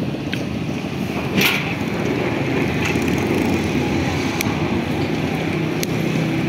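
Street traffic noise: vehicle engines running steadily on the road, with one short sharp clatter about one and a half seconds in and a few light clicks.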